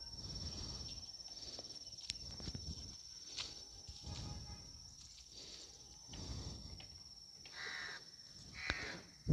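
Faint farmyard sounds: livestock calling quietly, then two short bird calls near the end, over a steady high-pitched whine.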